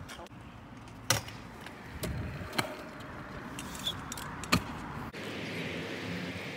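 Stunt scooter rolling on concrete with a metal rattle and a few sharp clacks of the scooter hitting the ground, the loudest about four and a half seconds in.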